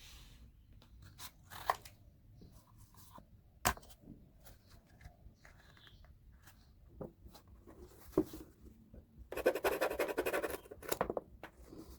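Handwork on cardboard: scattered clicks and scrapes, then a longer rasping stretch of cutting or scraping about two-thirds of the way through.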